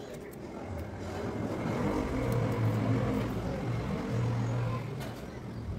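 A motor vehicle's engine passing by: a low, steady hum that swells about two seconds in and fades near the end.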